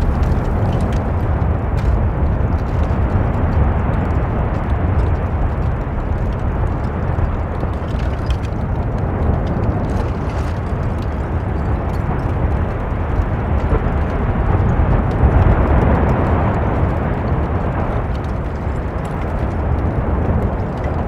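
Volcanic eruption: a steady, deep rumbling roar of lava churning and bursting in the crater, with faint crackles, swelling louder about fifteen seconds in.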